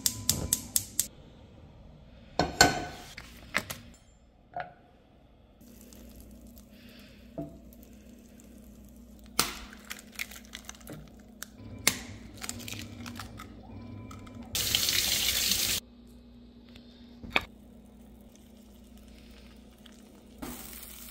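Cooking at a gas hob: a quick run of clicks from the burner's igniter at the start, then a loud knock as a pan is set down on the cast-iron grate. Scattered sharp knocks and cracks follow as eggs are cracked into the pan, with a faint steady low hum underneath and a loud hiss lasting about a second near the end.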